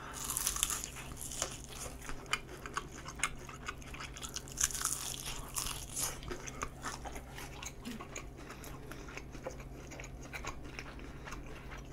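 Biting into and chewing crispy Kyochon Honey Combo fried chicken, with crackly crunches throughout. The loudest bites come at the start and again about five seconds in.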